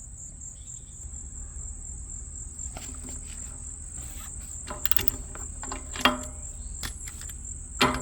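Metal clinks and knocks of a socket and ratcheting breaker bar being fitted to a trailer wheel's lug nut and worked, some with a short metallic ring, starting about three seconds in and loudest about six seconds in. Insects chirr steadily and high-pitched throughout.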